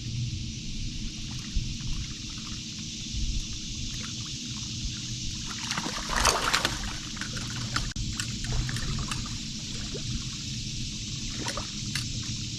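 Water trickling and lapping around a fishing boat, over a low rumble of wind on the microphone, with one brief louder rush of water about six seconds in.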